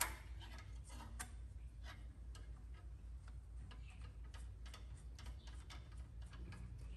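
Light, irregular metallic clicks, several a second, as a bolt and its washers are threaded by hand into a new metal fuel filter, with a sharper click right at the start, over a low steady hum.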